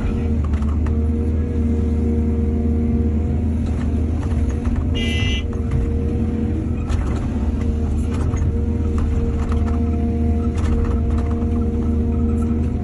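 Excavator's diesel engine running steadily under load, with scattered knocks, and a brief high-pitched tone about five seconds in.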